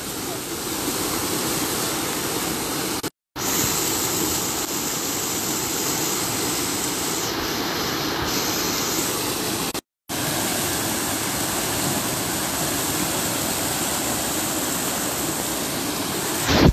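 Surma River floodwater rushing and churning through a breached dyke, a steady, continuous rush of turbulent water. The sound cuts out for a moment twice, about three seconds in and again near ten seconds, and swells louder just before the end.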